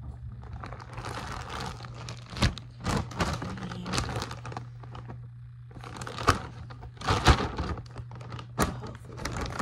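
Plastic pet-supply bags crinkling and rustling as bedding and hay are handled during a cage clean-out, with a scatter of sharp clicks and knocks, the loudest four coming at uneven intervals.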